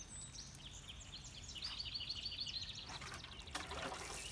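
A songbird singing a quick run of high chirps for about two and a half seconds, over faint outdoor background noise. A short burst of rustling noise follows near the end.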